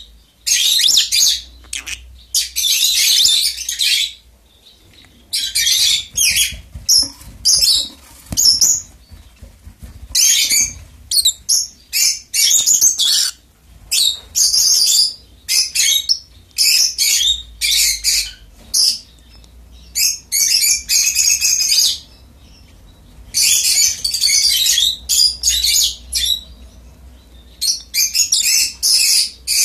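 A pair of rosy-faced lovebirds chattering in shrill bursts of about half a second to two seconds each, one after another with short gaps, while they feed each other beak to beak.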